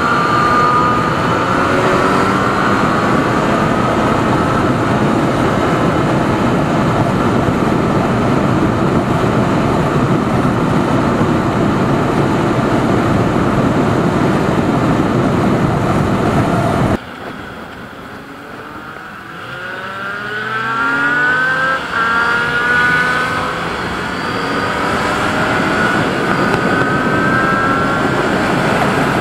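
Motorcycle at highway speed, a heavy rush of wind over the engine. About seventeen seconds in the sound drops off suddenly. Then the engine is heard accelerating hard, its pitch climbing in several successive rising sweeps as it runs up through the gears.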